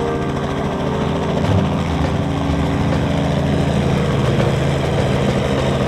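Small helicopter flying low past, its engine and rotor running steadily and getting a little louder about a second and a half in.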